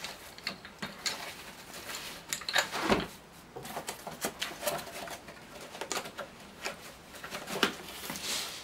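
Cardboard box being handled: flaps rustling and scraping, with scattered light knocks and one firmer thump about three seconds in as the box is set down or bumped.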